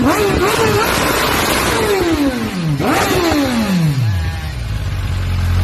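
Kawasaki superbike engine revved through its exhaust in quick blips, the pitch jumping up and falling back several times. After a last sharp rev about three seconds in, the revs fall away and it settles to a low, steady idle.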